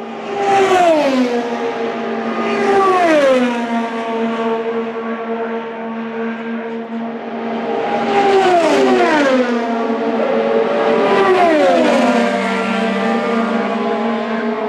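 IndyCars with 2.2-litre twin-turbo V6 engines passing at speed, four times, each engine note falling sharply in pitch as the car goes by. A steady high drone runs underneath.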